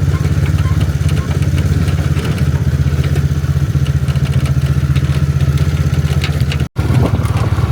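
Motorcycle engine of a Philippine trike (motorcycle with sidecar) idling steadily with a fast, even beat. The sound drops out for an instant near the end, then the engine carries on.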